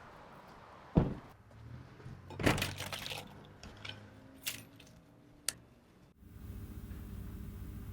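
A few sharp clicks and crackles: a loud one about a second in, a longer crackling burst about two and a half seconds in, and two smaller clicks later. About six seconds in, a steady low hum takes over.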